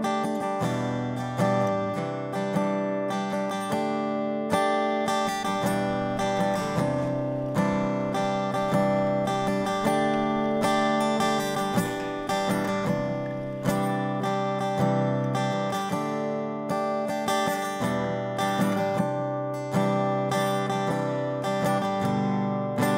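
Background music: an acoustic guitar instrumental, with notes and chords plucked in quick succession.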